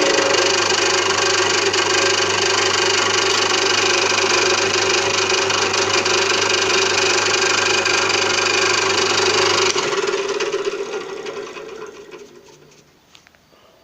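Homemade milling machine running with a steady motor hum, then switched off about ten seconds in, the noise dying away over a few seconds as it winds down to a stop.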